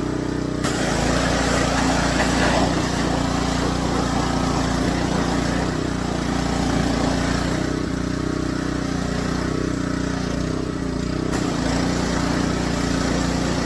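Gas pressure washer engine running steadily, with the hiss of the high-pressure water spray starting about a second in and stopping near the end.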